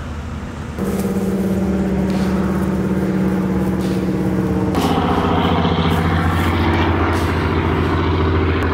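A motor engine running steadily at one pitch. About a second in it gets louder with a clear steady hum, and about five seconds in it turns fuller and rougher.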